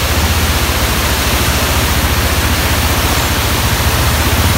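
Small motorcycle engine running at low speed as the bike crosses a shallow stream flowing over rock, with a steady rush of water over the engine's low, even pulsing.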